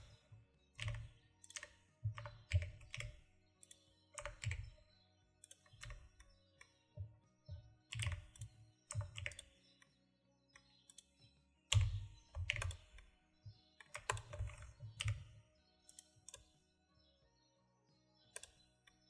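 Computer keyboard keys tapped in irregular bursts, stopping near the end, over faint background music.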